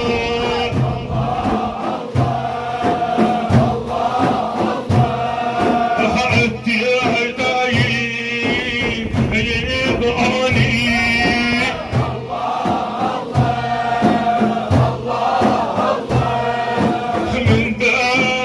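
Male voices chanting a Sufi dhikr in Arabic, a lead singer with a group joining in, over a steady repeating low beat.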